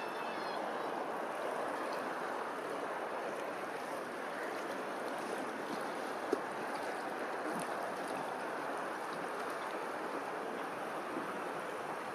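Steady rush of open water lapping, mixed with wind noise, with one brief click about six seconds in.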